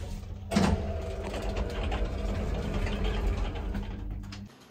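Passenger lift running: a knock about half a second in, then a steady low hum and rumble as the car travels, cutting off near the end as it stops.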